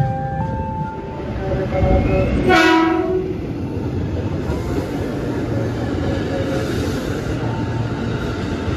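Ex-Tokyo Metro 6000 series KRL commuter electric train gives one short horn blast about two and a half seconds in as it comes into the station. After that it runs alongside the platform with a steady rumble of wheels and motors.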